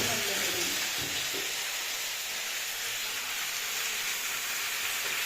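Chicken pieces frying in hot oil in a pan, a steady sizzle.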